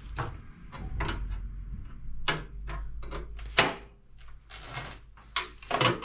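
A screwdriver blade worked in a slot of a microwave oven's sheet-metal casing, giving a run of irregular metal clicks and scrapes, with one sharper knock about halfway through.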